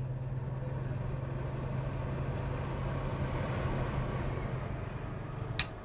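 Kitchen range hood exhaust fan running with a steady low hum and airy rush. Near the end a switch clicks and the hum cuts off.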